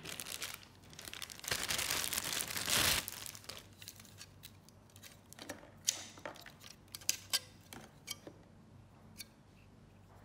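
Clear plastic bag crinkling as a white 120 mm PC fan is pulled out of it, loudest in the first three seconds. Then a few light clicks and rustles as the fan is handled.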